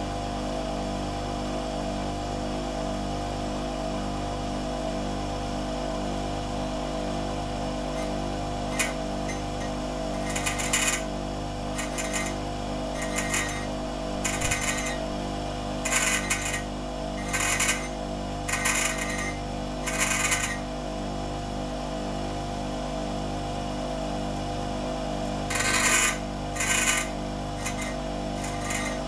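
Bench grinder motor running steadily. After several seconds, a nail is pressed against the spinning wheel again and again, giving about ten short bursts of grinding, each about a second long, as its tip is shaped into a drifting tool.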